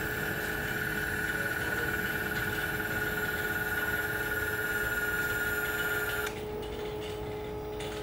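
Electric actuator motor of the water heater's boiler-water control valve running with a steady whine as it drives the valve closed after the setpoint was lowered, cutting off abruptly a little over six seconds in as the valve reaches closed. A steady lower hum carries on underneath.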